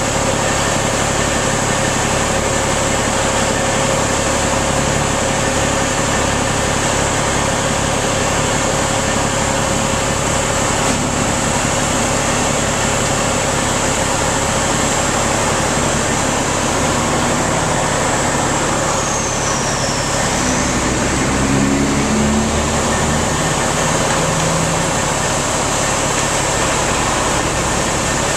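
A vehicle engine running steadily at a constant, loud level, with a dense mechanical noise and low rhythmic pulsing underneath.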